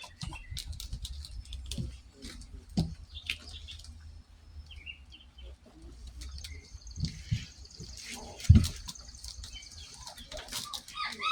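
Two-week-old puppies nursing on their mother, with faint high squeaks and chirps, shuffling and rustling, and one sharp thump about eight and a half seconds in.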